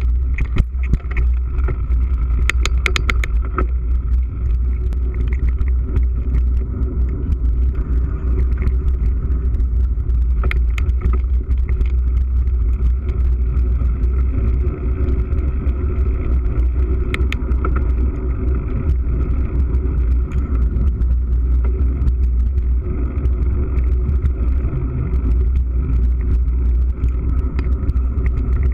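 Mountain bike ridden fast over a dirt forest trail: a steady low rumble of wind buffeting and tyre noise, with sharp rattles from bumps a few times, a cluster of them about three seconds in.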